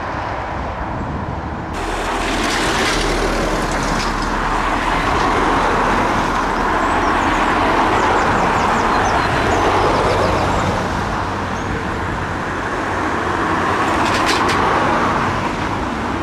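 Jet airliner engine noise, a loud steady rush that swells to a peak, eases off, and swells again near the end as the aircraft passes.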